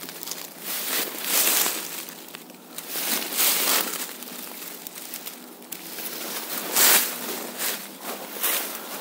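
Footsteps crunching and rustling through dry fallen leaves: irregular crunches every second or two, the loudest near seven seconds in.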